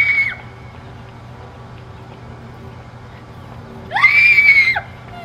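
Two loud, high-pitched shrieks. Each rises in pitch at the start, holds and falls away at the end. One is right at the start and a slightly longer one comes about four seconds in.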